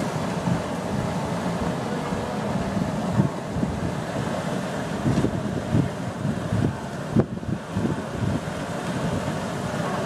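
Wind buffeting the microphone over the steady rush and splashing of a wildebeest herd crossing a river, with a sharp click about seven seconds in.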